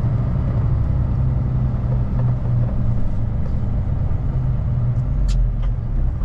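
Kenworth T880's Cummins diesel engine running with a steady low rumble, with a couple of light clicks about five seconds in.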